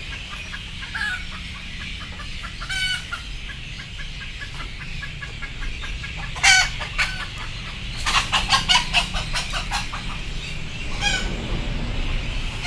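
Chickens clucking: a string of soft clucks, a sharp louder call about six and a half seconds in, then a quick run of cackling calls between about eight and ten seconds.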